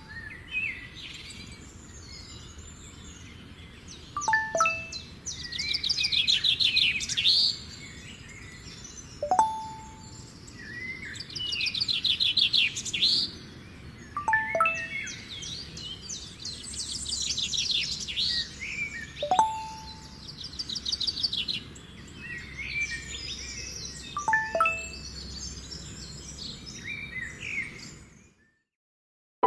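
Birds singing, a steady mix of chirps and trills. About every five seconds a short, sharp message-notification chime sounds over it, two different chimes taking turns. All sound stops about a second before the end.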